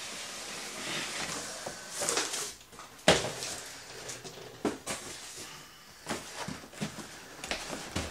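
Cardboard boxes being handled: a retail box sliding out of an upturned cardboard shipping carton, with rubbing and scraping of cardboard and a few knocks. The loudest is a sharp thump about three seconds in.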